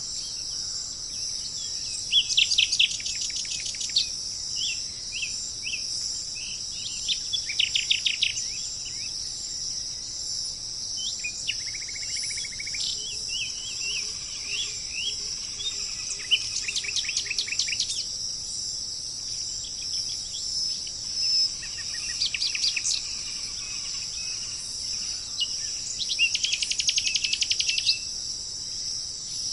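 Songbird singing repeated trilled phrases, each lasting a second or two and coming every few seconds, with short chirps in between, over a steady high-pitched hiss.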